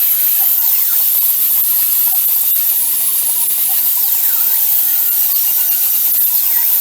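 A power tool running steadily at work, making a loud, even hiss with faint wavering squeals over it.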